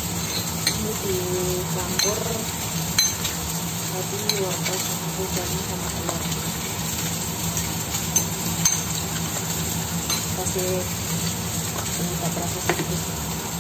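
A metal spoon beats eggs with carrot and chives in a ceramic bowl, clinking against the bowl at irregular moments every second or so, over a steady frying sizzle.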